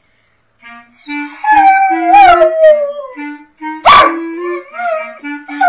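A dog howling along to a clarinet: the clarinet plays short, steady low notes while the dog gives long wails that slide downward in pitch, with a short loud yip about four seconds in.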